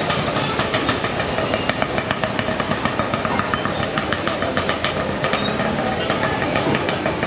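Busy city street ambience: a steady din of traffic and people, with a fast run of clicks and clatter through the middle.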